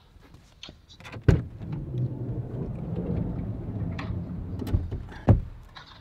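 Knocks and bumps of someone moving about inside a minivan, with a steady low mechanical hum for about three seconds between them.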